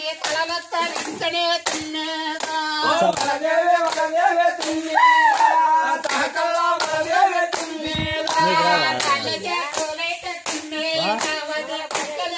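Group of dancers clapping their hands in a steady rhythm, about two claps a second, with voices singing over the claps.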